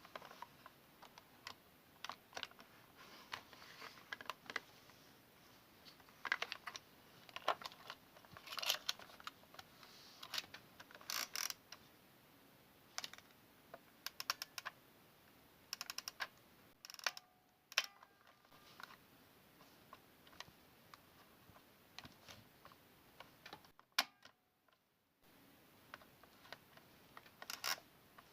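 Close-up ASMR tapping, clicking and scratching on an old camera's body. The taps and clicks are quick and irregular, with brief scratchy rubs in between.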